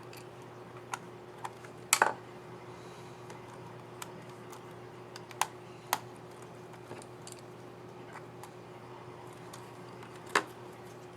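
Irregular small plastic clicks from a laptop keycap and its scissor mechanism being handled and pressed on the keyboard. The loudest is a double click about two seconds in, with more clicks near the middle and one near the end, over a faint steady hum.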